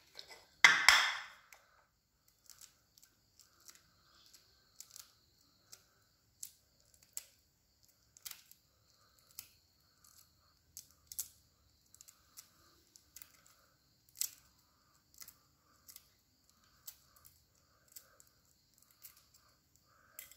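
Hard-boiled egg shell crunching loudly as it is cracked, about a second in, followed by scattered small crackles and clicks as fingers peel the shell off in flakes.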